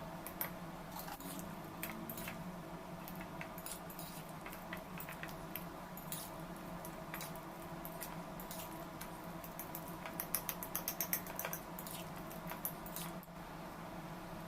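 Kitchen utensil clicking and scraping against a bowl in irregular strokes, with a quick run of clicks about ten seconds in, over a steady low hum.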